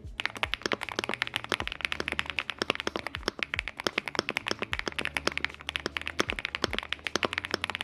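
Fast typing on a mechanical keyboard: a steady, dense run of key clacks, many to the second.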